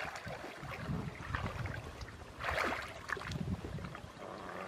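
Water splashing and sloshing in irregular bursts, the loudest splash a little past halfway.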